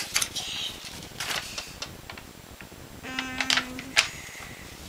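Sheets of paper being handled and shuffled, with several short crisp rustles and taps, and a brief steady hum-like tone about three seconds in.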